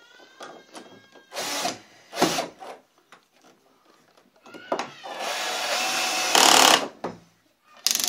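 Cordless drill-driver driving a heavy 6 mm screw through a steel door guard into a wooden door frame. Two short bursts of the motor, then a longer run of about two and a half seconds under load that is loudest just before it stops.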